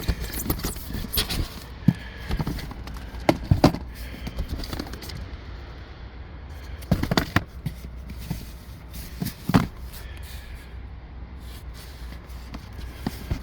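Boxed electronics being handled and shifted: scattered knocks, thumps and scrapes, clustered a few times, over a steady low rumble.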